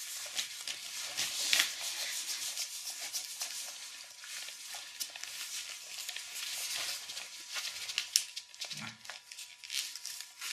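Rope being pulled through and wrapped around a leg for a single-column tie: a continuous rustling hiss of rope sliding and rubbing, with many small clicks.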